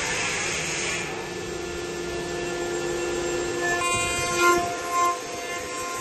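CNC router's electric spindle cutting wood: a broad cutting hiss for the first second, then a steady high whine with overtones, which swells loudly twice, about four and a half and five seconds in, as the tilted cutter works the edge of the workpiece.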